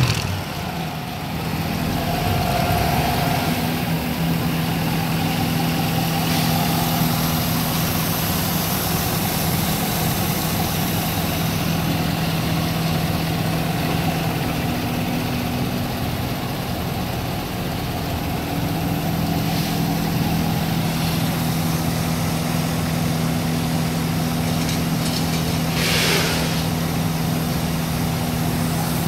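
6.2-litre direct-injection marine V8 idling steadily on a test stand. Near the end there is a brief rush of noise.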